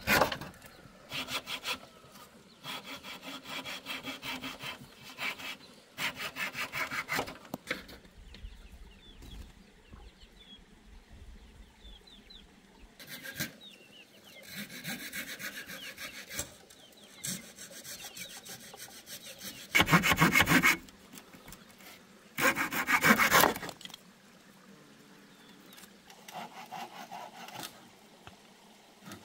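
Hand saw cutting wood in runs of quick back-and-forth strokes broken by pauses, with two louder, harsher bursts about two-thirds of the way through.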